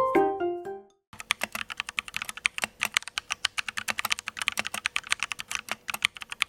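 Fast typing on an Akko x Dorami mechanical keyboard, a dense run of sharp key clicks, several a second. It starts about a second in, just after a short chiming melody fades out.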